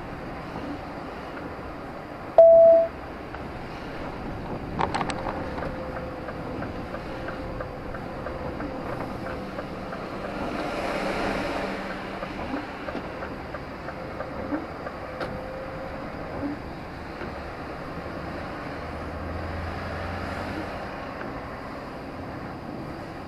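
Road noise inside a moving vehicle, a steady rumble and hiss. A short, loud single-pitch beep comes about two and a half seconds in, a few sharp clicks about five seconds in, and the noise swells briefly around eleven seconds.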